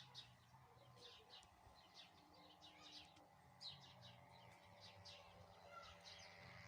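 Faint birdsong: small birds chirping, short high chirps repeating at irregular intervals, several a second at times, over a faint steady low hum.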